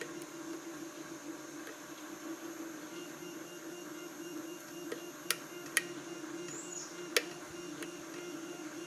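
Steady hum of a 3D printer running, with three or four sharp metallic clicks about midway from a lock-pick hook working the pins of a Corbin Russwin challenge lock as the pins set and drop.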